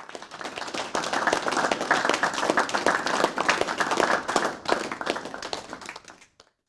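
Applause: many hands clapping, building up and then fading out about six seconds in.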